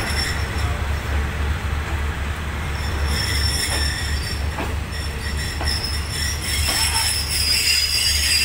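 Passenger train's steel wheels squealing on the rails in high thin tones over a steady low rumble, the squeal growing stronger near the end, with a few clacks over rail joints partway through.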